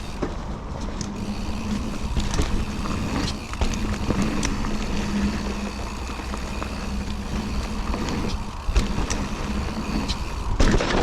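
Riding noise from a Nukeproof Scout 275 hardtail mountain bike going down a dirt trail: a steady low rumble of wind and tyres, with frequent short knocks and rattles from the bike. There is a louder clatter near the end.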